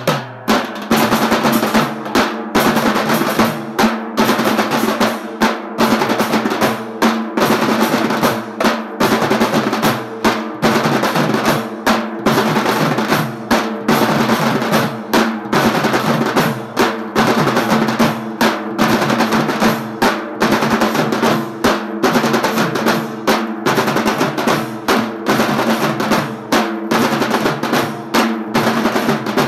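Dhol-tasha ensemble playing: big barrel dhol drums beating a steady rhythm under the fast rolling strokes of the tasha drums. Loud and unbroken throughout.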